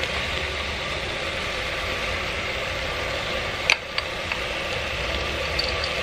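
Ground beef sizzling as it browns in oil in a pressure-cooker pot on a gas burner: a steady hiss with a low hum under it. Two light clicks come a little over halfway through.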